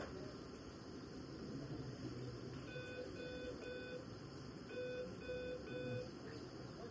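Bedside patient monitor alarm beeping in two groups of three short, evenly spaced beeps, over a faint steady hum of the nursery.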